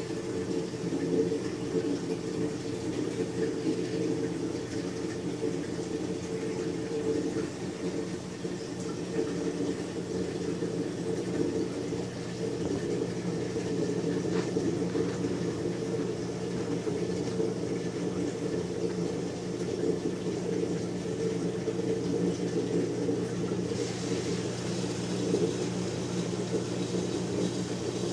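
Reef aquarium pumps running with a steady hum, and water circulating through the tank.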